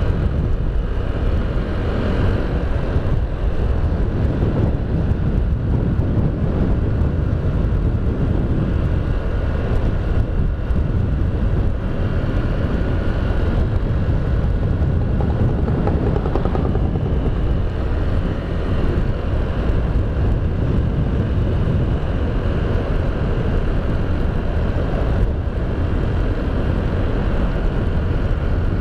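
Honda Beat scooter ridden steadily along the road: constant engine and road noise, with wind rumbling on the microphone.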